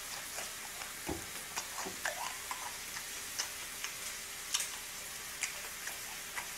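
Slices of pork belly sizzling in a frying pan: a steady hiss with scattered sharp pops of spitting fat. A couple of chewing sounds about one and two seconds in.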